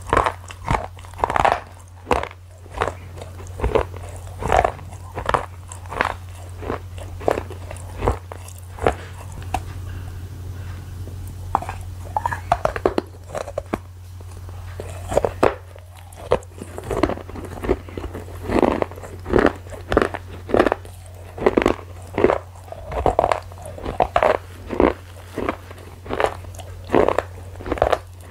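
A person biting and chewing a hard, crunchy food close to a clip-on microphone: sharp crunches about once a second, with a steady low hum underneath.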